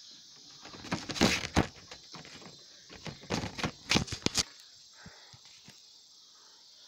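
Handling noise on the camera's microphone: rustling with sharp clicks and knocks in two bursts, one about a second in and another around three to four seconds in, as the camera is moved about.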